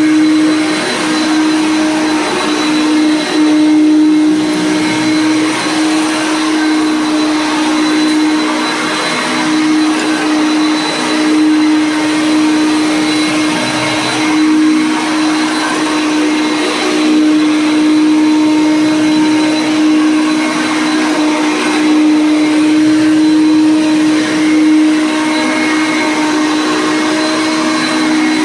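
Vintage Hoover Concept 1 Heavy Duty Power Drive upright vacuum running loud on carpet: a steady motor hum over a rush of airflow, the level rising and falling slightly. It runs on its lowest height setting with a worn-out brush roller and an old belt, yet still agitates the carpet well.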